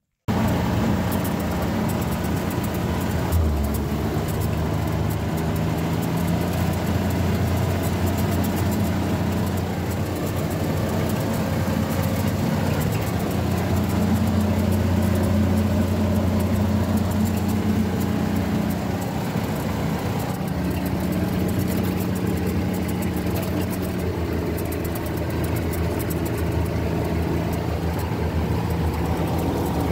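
Car engine running steadily with road noise as the car drives, its engine note stepping between a few steady pitches.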